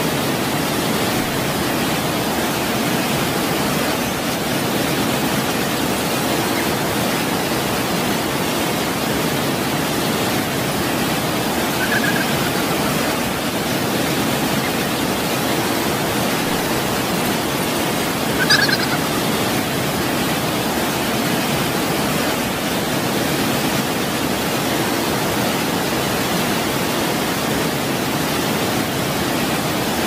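Steady rushing of a waterfall, an even, unbroken wash of water noise. Two brief high chirps cut through it, about 12 and 18 seconds in.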